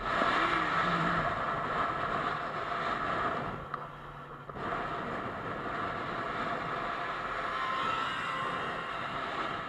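Steady rush of wind and engine noise from a motorcycle riding at highway speed, with a brief quieter dip about four seconds in.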